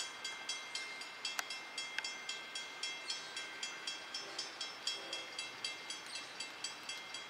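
Railroad grade-crossing warning bell ringing rapidly and evenly, about four strikes a second, each strike a bright metallic ring; the ringing stops at the very end.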